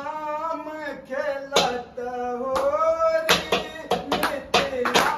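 Men singing a Holi folk song, one voice held and bending in pitch, with a steel plate beaten as a drum and hand claps keeping time. The strikes come sparsely at first, then settle into a steady beat about three seconds in.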